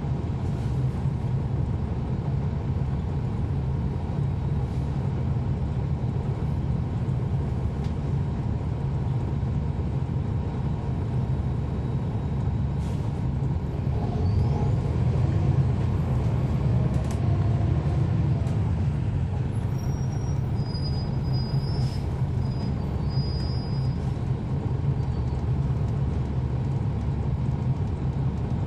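Inside a 2011 NABI 40-SFW transit bus: its Cummins ISL9 inline-six diesel engine running steadily with a deep hum, getting a little louder about halfway through.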